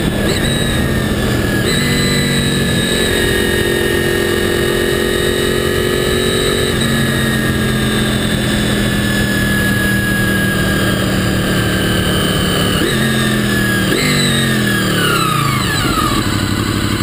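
Honda VFR800's V4 engine running at road speed over wind and road rush, its note steady between a few shifts in pitch. Near the end the revs jump up and fall away twice as the bike slows.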